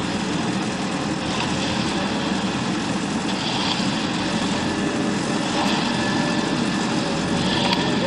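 Engine of a self-loading concrete mixer running steadily.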